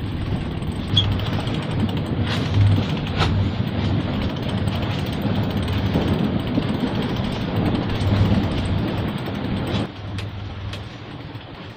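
Steady low rumble aboard a sailing yacht under way in a strong breeze, with a few sharp knocks; it eases somewhat about ten seconds in.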